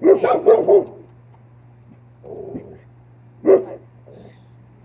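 Dog barking: a quick run of three or four barks, a softer bark about two seconds later, then one more sharp bark near the end.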